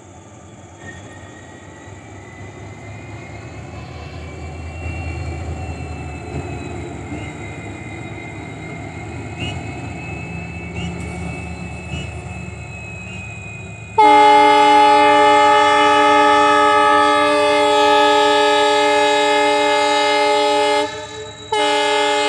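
WDG4 diesel-electric locomotive approaching, its rumble growing steadily louder, then its horn sounding one long blast of about seven seconds, breaking off briefly and starting again near the end.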